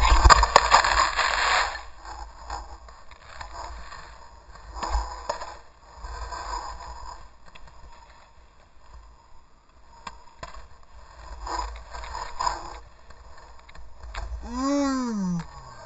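A snowboard sliding through powder, with a loud rush of snow and wind over the first two seconds. Then, with the rider down in deep snow, come scattered scuffs and crunches of snow against board and gear as he moves. Near the end a short pitched sound swoops up and falls away.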